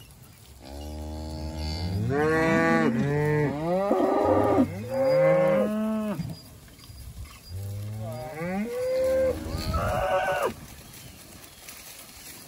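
Several cattle mooing, deep calls that rise and fall in pitch and overlap one another. They come in two spells with a short pause between, and the mooing stops about two seconds before the end.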